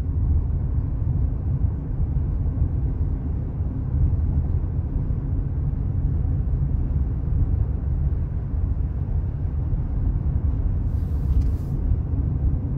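Steady low road rumble of a car driving at highway speed, heard from inside the cabin: tyre and engine noise, with a brief hiss near the end.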